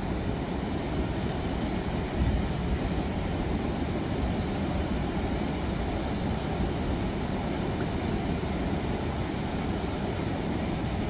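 Steady rushing of river water, with wind buffeting the microphone in low gusts, briefly louder about two seconds in.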